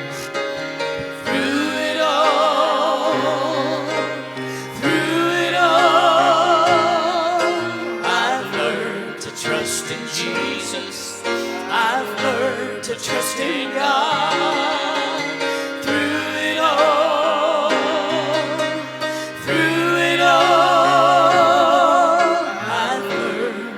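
Gospel singing with instrumental accompaniment: long held notes sung with a wide, even vibrato, one after another, over steady low chords.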